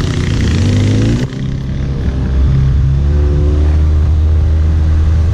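Off-road buggy engine revving up, its pitch rising over the first second, then an abrupt change to the engine running steadily at a constant speed while driving.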